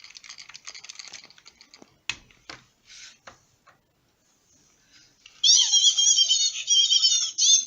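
Furby toy's mechanism clicking rapidly for about two seconds, then a few single clicks. After a short pause, the Furby's high, warbling electronic voice chatters through its small speaker for the last two seconds.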